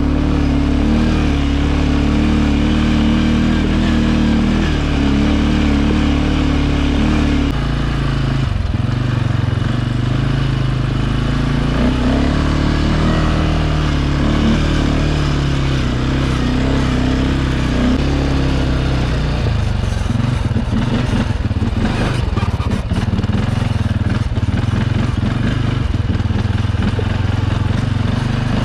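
CFMoto 520S ATV engine running steadily while riding along a rough gravel track, its note shifting a couple of times with the throttle. A stretch of clattering comes in about two-thirds of the way through.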